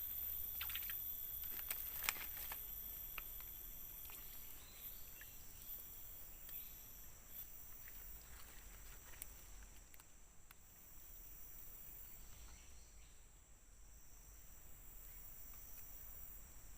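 Steady high-pitched chorus of forest insects, with a few soft clicks and knocks in the first couple of seconds.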